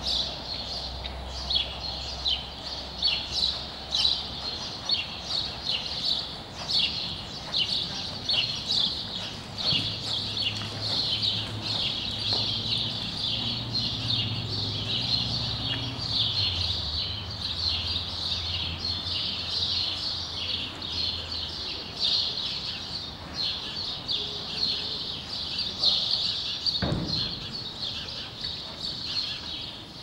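Small birds chirping continuously in quick, high-pitched repeated notes, over a low steady hum, with one short low rush of sound near the end.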